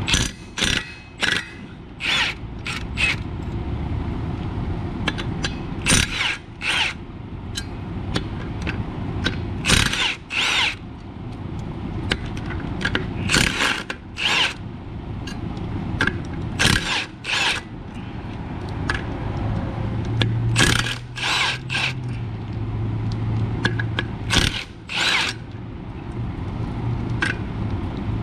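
Milwaukee Fuel cordless impact wrench hammering in repeated short bursts, one to three at a time with pauses between. It is spinning out the bolts of an automatic transmission's flywheel with a 19 mm socket.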